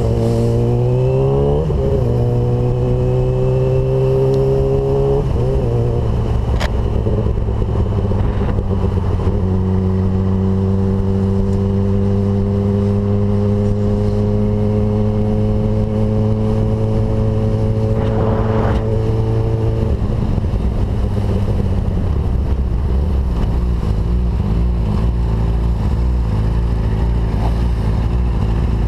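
Sport motorcycle's engine accelerating hard with three upshifts in the first ten seconds, each gear a climbing pitch that drops at the shift, then pulling steadily in a higher gear before easing off after about twenty seconds. A steady low wind rumble on the bike-mounted camera runs underneath.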